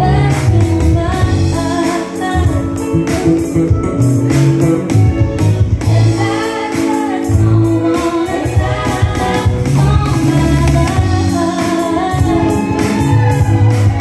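Live band music: a woman singing lead into a microphone over electric bass and a steady beat.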